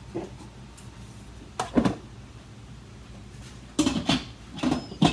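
Instant Pot lid being handled and fitted onto the pot: two short knocks about a second and a half in, then a cluster of louder knocks and clicks near the end as the lid goes on and is turned to lock.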